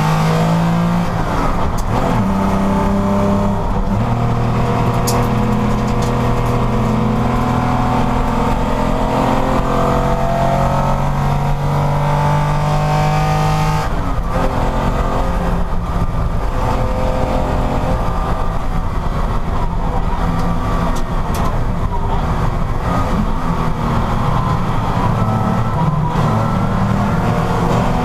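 Porsche racing car engine running hard under acceleration, its pitch climbing with shifts in the first few seconds. About halfway through the note drops away, then builds and climbs again.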